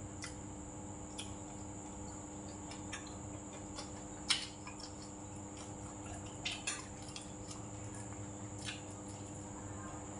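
Close-up eating sounds: wet chewing and mouth smacks, with a few sharp clicks of a metal spoon against a steel rice bowl, over a faint steady hum.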